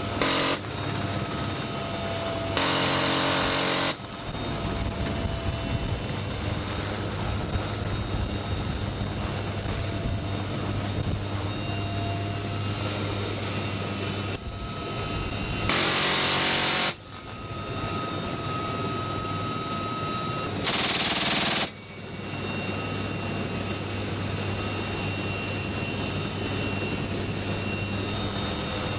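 Bursts of fire from a door-mounted GAU-18 .50 calibre M2 machine gun, about a second each: one right at the start, one about three seconds in, and two more about 16 and 21 seconds in. Between them the helicopter's engine and rotor run steadily, heard from inside the open cabin.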